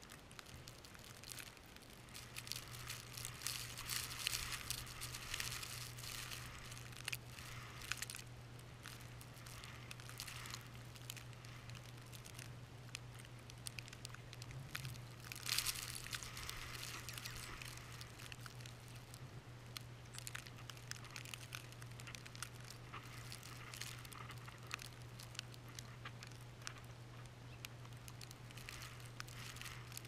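Blizzard gusts driving snow against the camera: a crackling, pattering hiss that swells in gusts, strongest a few seconds in and again about halfway through, over a steady low hum.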